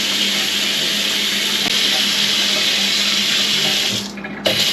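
Water running steadily from a sink faucet. It stops briefly about four seconds in, then runs again.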